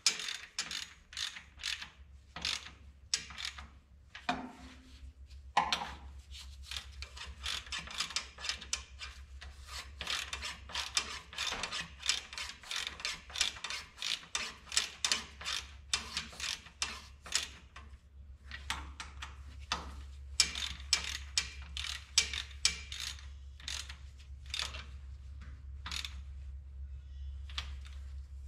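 Hand ratchet clicking in quick runs as connecting rod cap bolts on a Minneapolis Moline U302 engine are tightened, with a few short pauses between runs. A steady low hum lies underneath.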